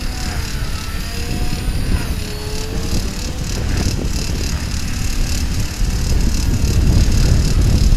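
Radio-controlled helicopter in flight, its rotor and motor pitch rising and falling as it manoeuvres, getting louder over the last couple of seconds. Heavy wind rumble on the microphone.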